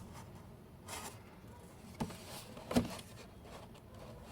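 A product box being handled and opened by hand: a short rustle, then a click and a soft knock, the knock the loudest.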